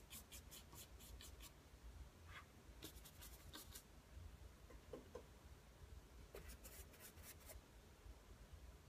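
A paintbrush scrubbing oil paint in quick, faint back-and-forth strokes, about five a second, in three short runs.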